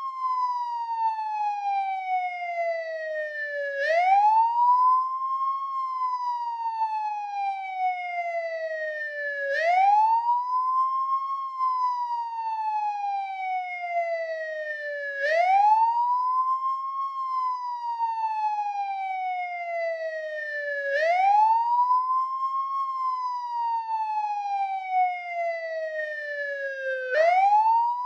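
American police car siren on the wail tone: a steady, repeating cycle that rises quickly to its top pitch and falls slowly back down, about once every six seconds, five cycles in all.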